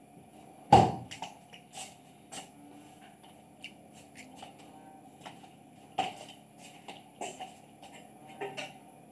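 Cats feeding from a clear plastic food container: scattered clicks and small knocks as they eat and nudge it. There is a sharp knock about a second in and another about six seconds in.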